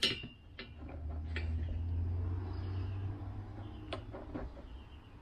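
A low rumble of a passing vehicle that swells to its loudest about two to three seconds in, then fades. Over it come a few sharp clicks of needle-nose pliers on the plastic recoil starter housing as the new cord is worked through.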